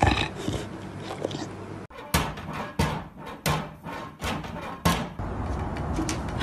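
Orange-and-white cat pawing at a plastic cat-door flap, the flap clacking again and again, about once every two-thirds of a second. Before that, a dog makes brief vocal sounds.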